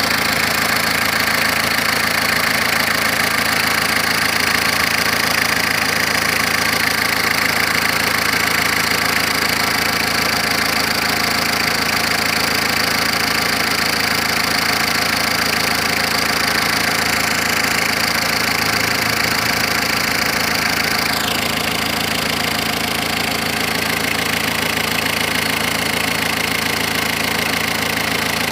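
Renault Clio II 1.9 dTi four-cylinder diesel engine idling steadily. About two-thirds of the way through, a high whine falls in pitch and fades, and the sound becomes slightly quieter.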